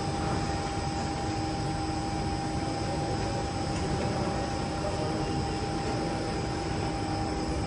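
Rotary-cylinder chocolate drop depositing machine running: a steady mechanical hum with a few constant whining tones.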